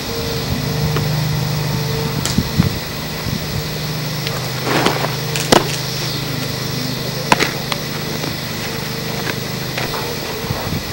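A steady low motor hum that starts about half a second in and cuts off near the end, with a few sharp knocks around the middle.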